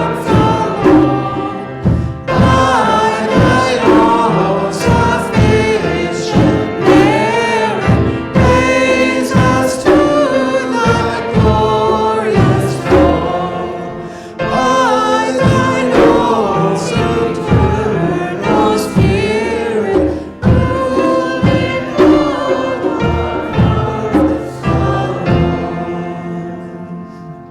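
Group of voices singing a worship song with instrumental accompaniment; near the end the song closes on a held final chord that fades out.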